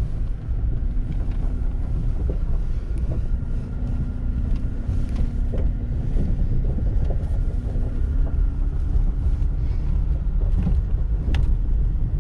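Wind buffeting the microphone inside a slowly moving Toyota truck, over a steady low rumble of engine and tyres on a gravel road, with a faint hum and a few small clicks.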